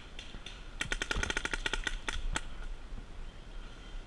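Paintball markers firing a rapid string of sharp pops for about a second and a half, then a few scattered shots.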